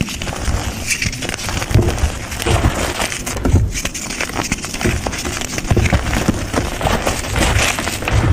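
Hands crushing, raking and dropping dry crumbly grey and green powder: a continuous gritty crunching and rustling, with soft thuds as handfuls are pressed and let fall.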